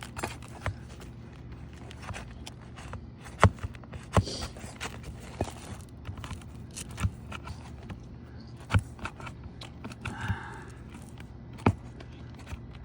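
Irregular sharp clicks and knocks, about five louder ones, with some scraping: a tool working loose and pulling the nails that hold laminated roof shingles.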